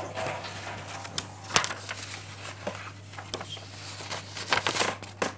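A sheet of paper handled and rustled close to the microphone, with scattered sharp clicks and taps and a quick cluster of them near the end, over a low steady hum.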